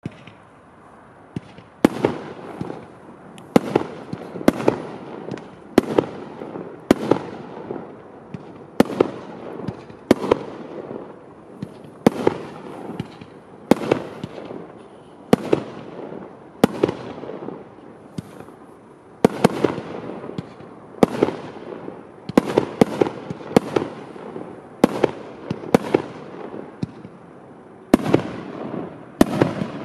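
Klasek C47XM3 Sprayerz 47-shot compact firework cake (30 and 50 mm calibres) firing an irregular volley of sharp bangs, one or two a second, each trailing off in a fading hiss.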